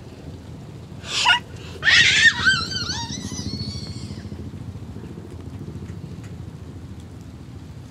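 A small child's voice: a short shriek about a second in, then a louder squealing call that wavers up and down in pitch and fades after about a second. A steady low rumble continues underneath.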